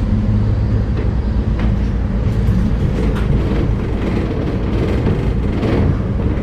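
Vintage bus engine running steadily, heard from inside the passenger saloon, with rattles and knocks from the bodywork.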